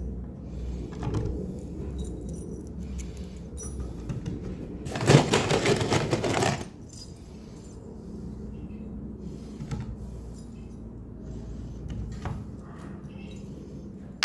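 Workshop handling sounds: scattered light knocks and clinks, with one loud burst of noise lasting nearly two seconds about five seconds in.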